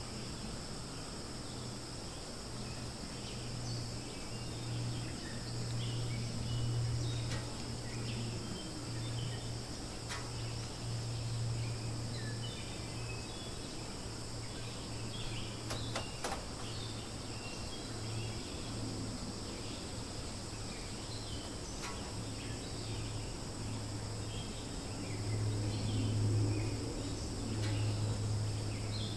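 Forest ambience: a steady high-pitched drone of insects with many short bird chirps scattered through it, over a steady low hum that swells and fades, loudest near the end.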